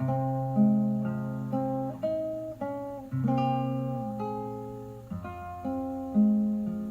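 Acoustic guitar playing a slow melody in plucked notes and chords, each note ringing out and fading; a last chord is struck near the end and dies away.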